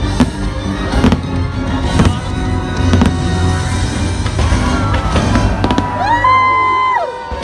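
Aerial fireworks shells bursting: a run of sharp bangs, most in the first three seconds, over music playing along with the show.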